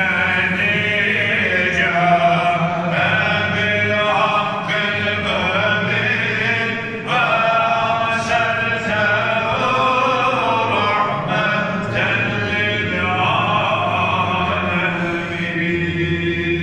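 Islamic religious chanting in a large domed mosque hall: a continuous melodic recitation sung in phrases of one to a few seconds each.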